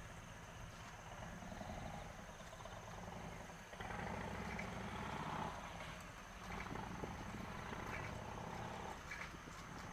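Distant Cessna 172R Skyhawk's four-cylinder Lycoming engine and propeller droning as the light aircraft flies its approach. The level is uneven and swells from about four seconds in.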